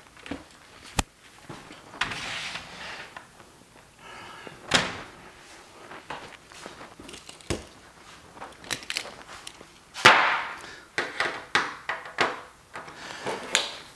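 Scattered knocks, thuds and clatter of tools and an aluminium saw track being handled and set down on a plywood worktable, the loudest knock about ten seconds in.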